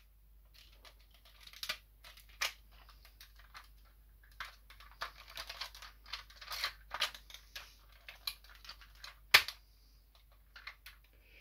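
Hard plastic clicking and scraping as a Power Rangers Turbo Robo Racer toy is transformed by hand from robot into car mode, with scattered sharp snaps of parts folding and locking into place. The sharpest snap comes about nine seconds in.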